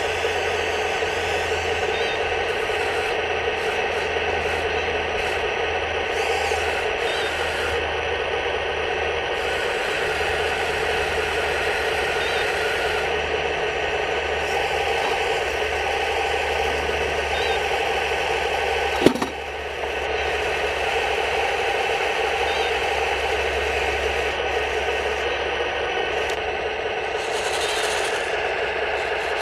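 A 1:16 radio-controlled recovery tank model's electric motors and gearing whir steadily as it works its crane boom. The pitch changes slightly partway through, and there is one sharp click about nineteen seconds in.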